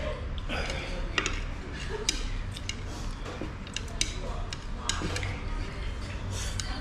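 Chopsticks clicking against a plate several times while eating noodles, over a low murmur of room noise.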